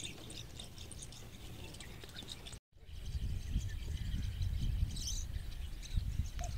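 Scattered bird chirps. The sound cuts out briefly about two and a half seconds in, and after that a low rumble sits under the chirps.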